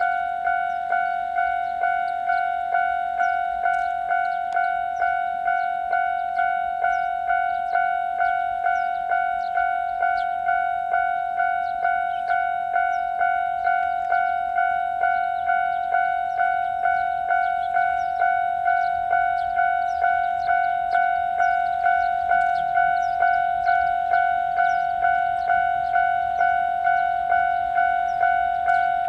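Japanese level-crossing warning bell ringing: an electronic bell tone struck evenly about twice a second, which signals that a train is approaching and the crossing is closed.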